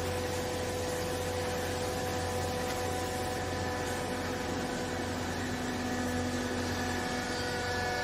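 Vertical hydraulic baler's electric motor and hydraulic pump running with a steady hum while the ram presses down into the baling chamber. A lower tone joins about halfway through and drops away near the end.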